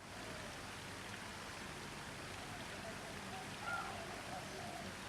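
Steady hiss of falling or running water, with a faint short bird chirp and warble nearly four seconds in.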